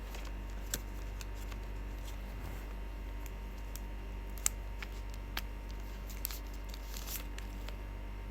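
Scattered light clicks and taps of a phone's box and accessories being handled during unboxing, about a dozen over a few seconds, with the sharpest about halfway through, over a steady low hum.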